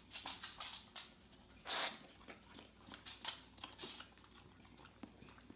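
One short hiss of an aerosol whipped-cream can sprayed, about two seconds in, among quick wet licking and lip-smacking clicks from a dog eating the cream.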